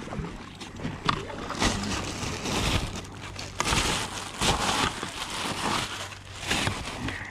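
Paddle blades dipping and pulling through canal water from an inflatable kayak, a swishing splash about every second.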